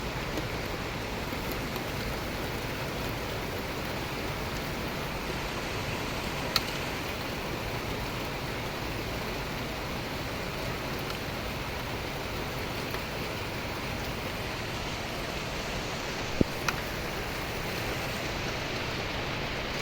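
Steady rain hiss, with a few sharp drip ticks, one about a third of the way in and two close together later on.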